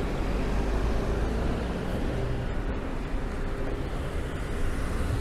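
Steady traffic rumble of a city street, a low even noise with faint engine hum and no single standout event.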